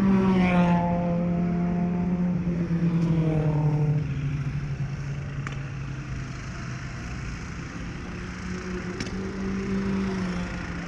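Drone's propellers humming on its own microphone, the pitch sliding down over the first few seconds as it turns and then holding steady.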